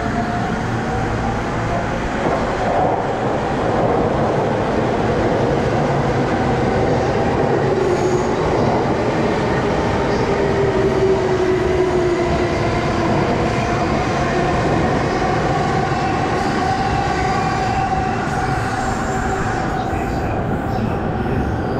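E231-series electric commuter trains running alongside the platform, one pulling out and another pulling in: steady rumble of wheels on rails with a motor whine that slides in pitch, falling for a few seconds near the middle.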